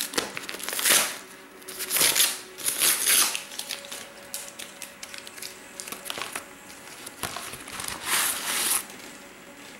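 Padded kraft bubble mailer crinkling and rustling in several bursts as hands grip its opened end and slide the contents out.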